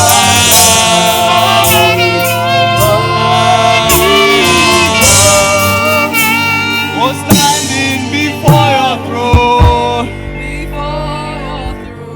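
Live gospel worship music: a band playing a slow praise song with singing and a saxophone lead line over sustained chords. There are a few heavy low hits past the middle, then the music falls quieter about ten seconds in.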